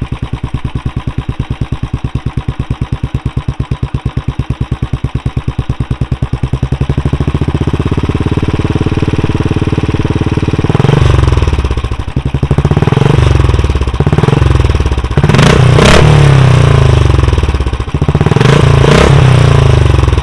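Royal Enfield Classic 350's single-cylinder engine breathing through a SCUD barrel aftermarket exhaust: an even, rapid idle thump for about ten seconds, then revved in several blips. The last two revs are held longer and are the loudest.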